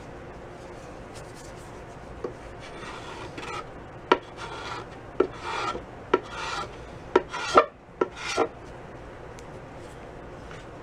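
Putty knife scraping softened, bubbled-up paint and paint stripper off a wooden snare drum shell: about half a dozen short strokes, each starting with a sharp click, from about two seconds in until a little past eight seconds.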